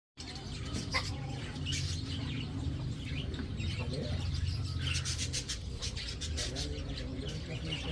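Birds chirping and calling in short scattered notes over a steady low rumble, with a quick run of clicks about five seconds in.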